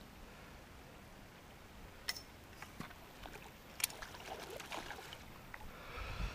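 Hooked rainbow trout splashing and swirling at the surface close to the bank as it is played on a fly rod, with two sharp clicks, about two and four seconds in.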